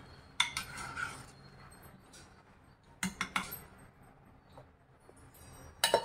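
Metal kitchen utensils clinking and knocking against a cooking pot: a couple of knocks about half a second in, a short cluster around three seconds, and a sharper, louder clink near the end.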